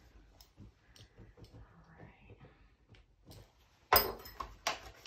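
Faint small handling sounds of gloved hands working a rubber gasket off a spray-gun nozzle, then, about four seconds in, a few short loud rustles of a paper towel being grabbed.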